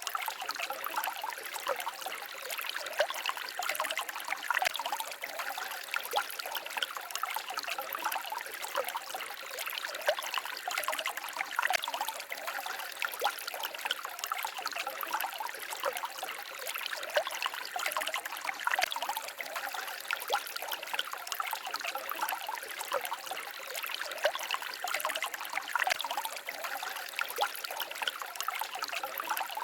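Small forest stream babbling and trickling steadily, with many small splashes and little low rumble.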